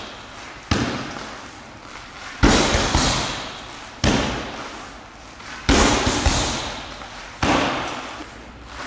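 Gloved punches landing on a hanging heavy punching bag: five heavy thuds about every second and a half to two seconds, each trailing off over about a second.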